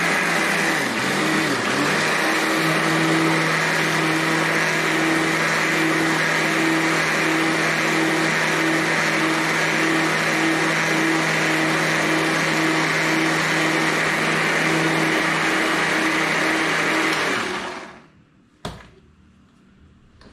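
Electric mixer grinder (mixie) running steadily with a motor hum, grinding cat food, then switching off about 17 seconds in. A single click follows about a second later.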